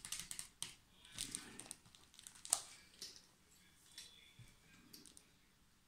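Knife cutting a sheet of pressed wax foundation to size along a wooden template laid on a board: scattered small scrapes, ticks and knocks as the wax is cut and the template and board are handled, the sharpest knock about two and a half seconds in.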